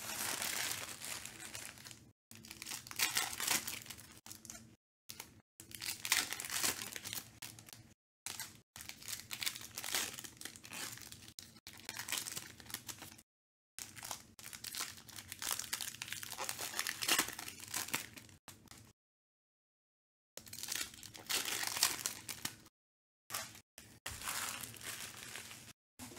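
Foil trading-card packs being torn open and their wrappers crinkled in the hands, in bursts of a few seconds broken by sudden dead silences.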